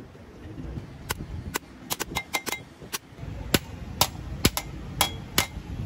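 Hand hammer striking metal while riveting a truck clutch plate: about a dozen sharp, irregularly spaced blows, each with a short metallic ring.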